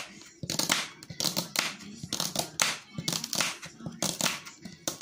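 Knife cutting salad vegetables on a cutting board: a run of short, sharp cuts, about two to three a second, unevenly spaced.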